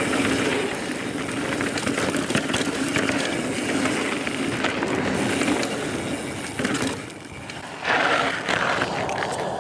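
Transition Spur short-travel 29er mountain bike rolling fast down dry dirt singletrack: steady tyre noise over the dirt with rattling and clicking from the bike over small bumps. Near the end there is a louder rush of noise.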